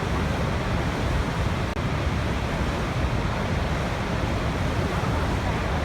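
Waterfall rushing steadily, a dense even roar of falling water heavy in the low end, with a momentary dropout a little under two seconds in.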